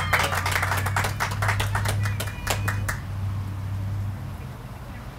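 A small crowd clapping, the claps thinning out and stopping about three seconds in, over a low steady hum that fades away about a second later.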